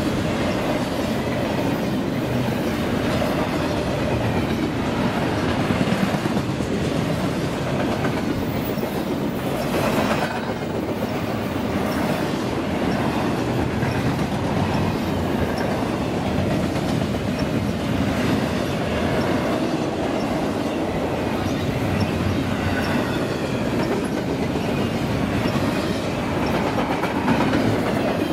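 Double-stack intermodal train passing at speed: a steady rumble of steel wheels on rail from the loaded well cars, with occasional wheel clicks over rail joints.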